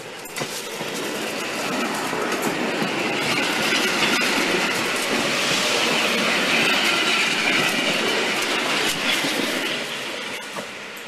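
PKP class EN57 electric multiple unit passing close by, its wheels clicking over rail joints with a high squeal. It grows louder as the carriages go past and fades near the end.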